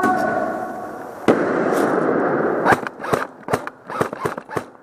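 An airsoft grenade goes off about a second in: a sudden loud burst followed by about a second and a half of hissing noise, then a rapid string of sharp cracks.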